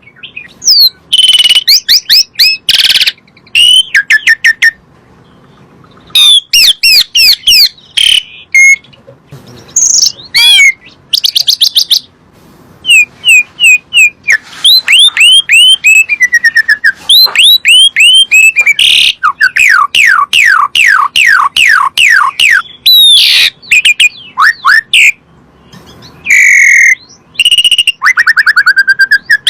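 Asian pied starling (jalak suren) song: loud, varied phrases of rapid downward-sweeping whistles and chattering notes, repeated in quick runs with short pauses.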